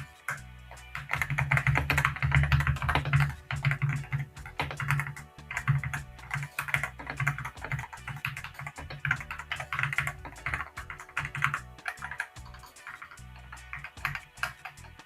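Typing on a mechanical keyboard fitted with unlubricated Gateron Milky Yellow Pro linear switches, with polycarbonate top and bottom housings and a POM stem. Rapid runs of clacking keystrokes come in bursts with short pauses between them.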